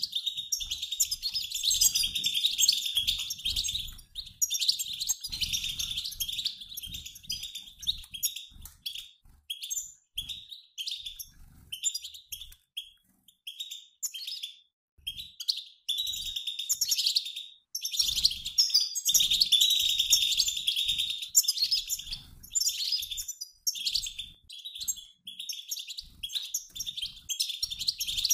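A mixed flock of European goldfinches, males and females, twittering and chattering together, like a flock in flight. The calls are dense at first, thin out to scattered short chirps around the middle, then thicken again.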